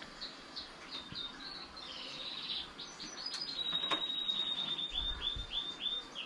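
A small bird singing: a run of quick, high, down-slurred notes, several a second, that speed up into a fast series about halfway through. A single sharp click about four seconds in.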